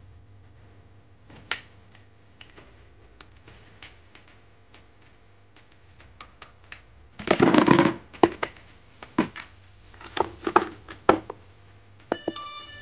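Die-cast toy cars clicking and knocking against each other and a tabletop. About seven seconds in there is a loud clatter of a crash, followed by several sharp knocks; music starts just before the end.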